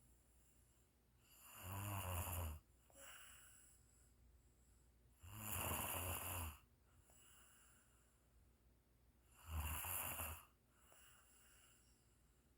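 A sleeper snoring: three snores about four seconds apart, each lasting about a second, with quieter breaths between them.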